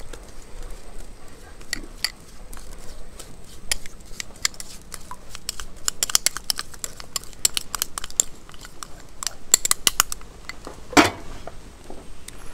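Steel spoon clinking and scraping against a glass bowl as thick ground coconut paste is spooned out into a pot of curry: a busy run of light clicks, with one louder knock near the end.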